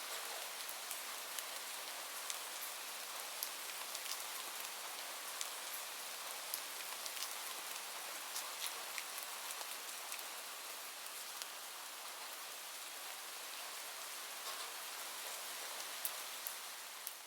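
Steady rain falling, an even hiss with scattered sharper drops striking a surface, fading out near the end.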